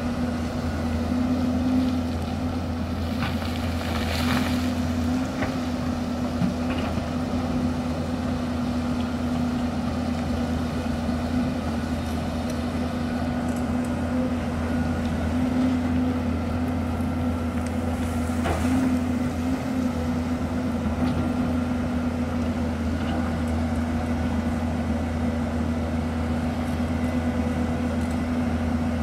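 Hyundai crawler excavator's diesel engine running steadily under digging load, with a few faint knocks of the bucket on rock.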